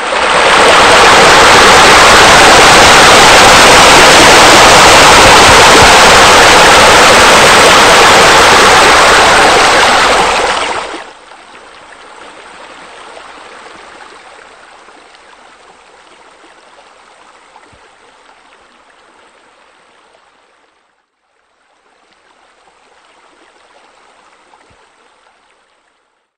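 Pool water features running: rushing, splashing water, loud for about the first eleven seconds, then much quieter. It fades, breaks off briefly about two-thirds of the way through, and returns faintly near the end.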